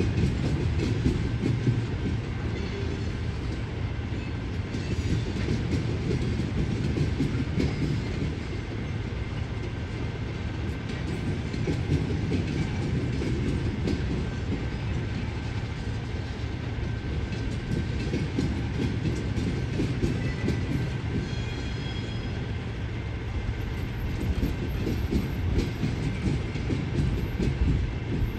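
Covered hopper cars of a freight train rolling slowly over a road crossing: a steady rumble with wheel clatter on the rails.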